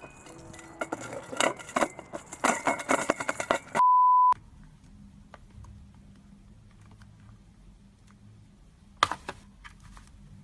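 A rapid run of small clicks and clinks, cut off about four seconds in by a loud, steady half-second beep tone like a censor bleep. After it, faint quiet with a brief cluster of clicks near the end.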